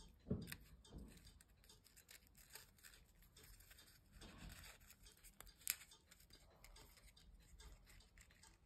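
Faint rustling and crinkling of folded paper origami units being handled and tucked together, with a few small sharp ticks, one just after the start and the sharpest a little past the middle.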